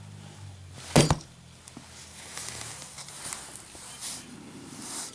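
A lit Zippo lighter with a street-chrome case dropped for a drop test, hitting a hard surface with one sharp clack about a second in.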